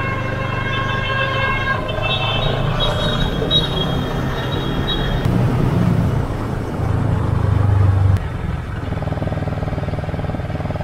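Motorcycle engine running while riding, with wind and road noise. The engine note builds louder a little before eight seconds in, then drops off suddenly, as when the throttle is closed.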